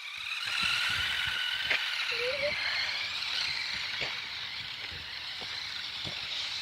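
Electric RC car motor whining at speed as the car drives off, the whine slowly fading as it gets farther away, with a few faint ticks.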